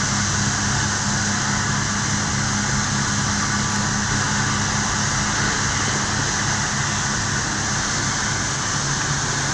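Fire boat's engines droning steadily as they drive its water cannons, over an even hiss.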